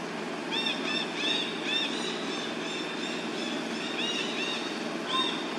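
A string of short, arched chirping calls from an animal, about two a second, stopping near the end, over a steady low background rumble.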